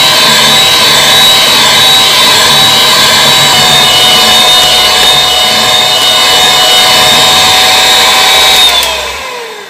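Electric hand mixer whipping eggs, sugar and SP emulsifier into a thick, fluffy sponge-cake batter, its motor running with a steady high whine. Near the end it is switched off and the whine falls in pitch as the motor winds down.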